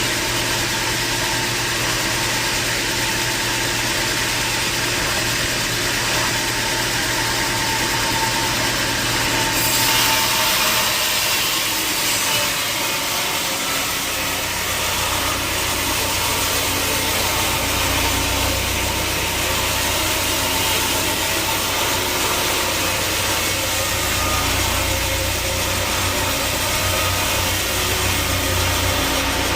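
Sawmill machinery running steadily, an engine-driven drone with a steady whine. About ten seconds in, the sound changes: a hiss comes up in the upper range and the low drone shifts.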